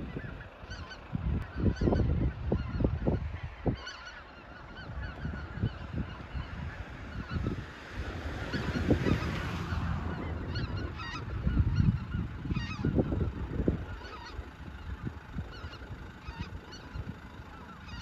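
A large flock of geese calling in flight: many overlapping honks, thickest about halfway through. Low rumbling bursts come and go beneath the calls.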